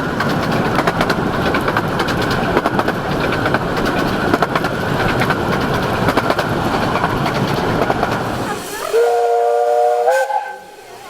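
Romney, Hythe & Dymchurch Railway miniature train running along the track, a steady rumble with rapid rail clicks. About nine seconds in, the locomotive sounds one long chime whistle of several notes that steps up slightly in pitch before cutting off, and the running noise drops away.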